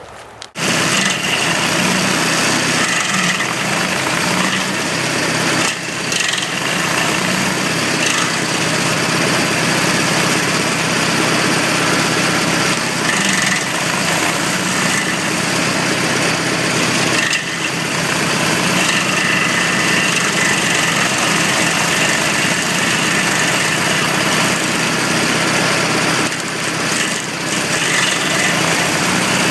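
Morbark G42SP stump grinder running: its gasoline engine at high speed with the cutter wheel spinning, a loud steady machine noise. It starts abruptly about half a second in and dips briefly a few times.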